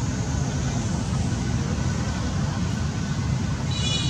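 Steady low outdoor rumble, with a brief high-pitched call near the end.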